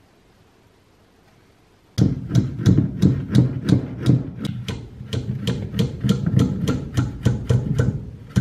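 Hammer blows on a bent steel wire laid against a wooden plank, beginning about two seconds in. There are quick, even strikes, about three or four a second, each with a dull wooden thud and a sharp metallic tap.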